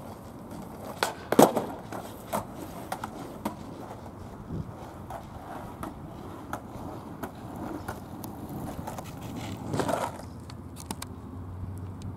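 Skateboard on asphalt: a loud double clack of the board striking the ground about a second and a half in, then lighter knocks and clicks of board and wheels every second or so, and a swell of rolling noise near ten seconds.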